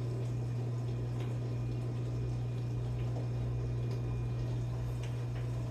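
Steady low hum with faint room hiss, unchanging throughout, with no clicks or gear noise.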